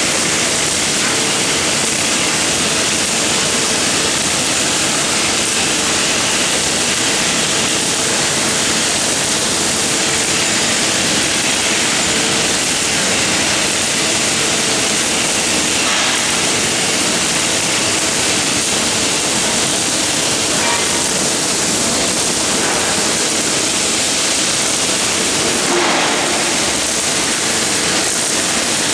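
MIG welding arc of a CNC gantry welding machine, a steady hiss that runs on unbroken.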